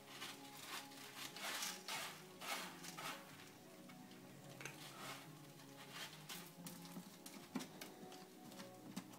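Faint background music with held notes, over frequent soft scratchy rustles and patters.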